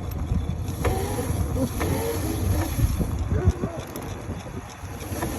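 Low rumble of wind buffeting the microphone and tyres rolling over rough ground while an electric mini motorcycle is ridden, with a few faint wavering tones.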